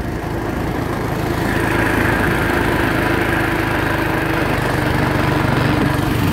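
Small go-kart engine running steadily as the kart drives over grass, with a small dirt bike's engine running alongside.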